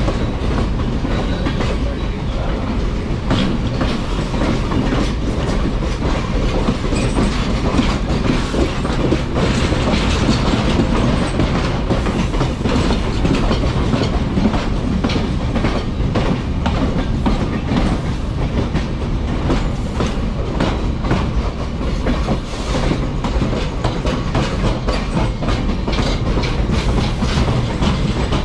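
Passenger train running along the track: a steady rumble with dense, irregular clicking and clatter from the wheels over the rails.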